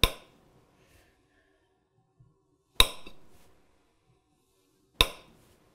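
Three sharp clinks of a utensil against ceramic dishware, a couple of seconds apart, each ringing briefly.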